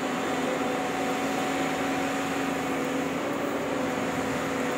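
JCB crawler excavator's diesel engine running steadily as it digs: a constant, even hum.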